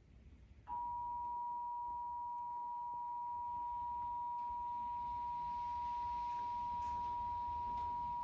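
Emergency Alert System attention signal: the steady two-tone beep (853 Hz and 960 Hz sounded together), starting under a second in and holding at an even pitch and level. It is the alert tone that heralds an EAS message, here for a Required Monthly Test.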